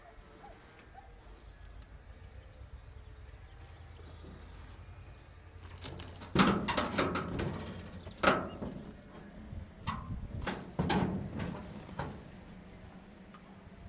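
Faint steady low hum, then from about halfway a run of irregular sharp knocks and clanks, the loudest two near the start of the run.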